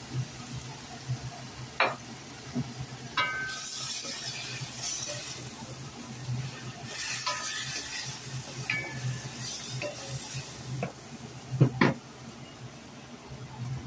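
Chicken and radish sizzling in a hot wok as they are stir-fried, the frying hiss swelling twice. A cooking utensil clinks and knocks against the metal pan every few seconds, loudest in a pair of knocks near the end.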